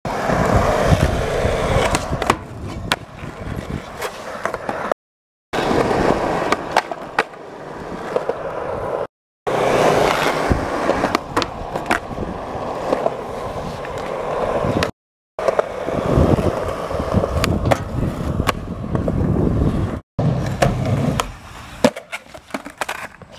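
Skateboard wheels rolling on concrete with a steady rumble, broken by sharp clacks of the board hitting the ground. The sound runs as several separate clips, each cut off by a brief moment of dead silence.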